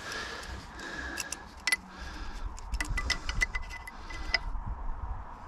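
Metal clicks and clinks of a wrench working the fittings on top of a two-cylinder engine: a couple of sharper clicks, then a quick run of about five light ticks a second for about a second and a half, ending in a louder click.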